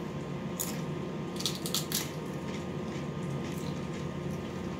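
Doritos tortilla chips being bitten and chewed, with a few sharp crunches in the first two seconds and quieter chewing after.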